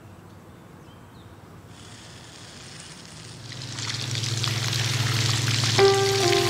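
Water splashing and pattering down over a freshly shaved head. After a quiet start it is a hiss of falling drops that grows steadily louder through the second half. A low drone and a few sustained musical notes come in near the end.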